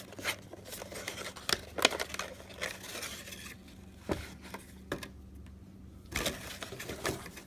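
Packaging being handled and opened by hand: scattered crinkles, rustles and light taps, quieter for a couple of seconds in the middle before a last cluster near the end.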